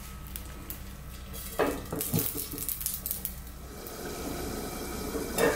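Pot lid knocking and clinking as it is set on a cooking pot, a few separate knocks about a second and a half to two seconds in.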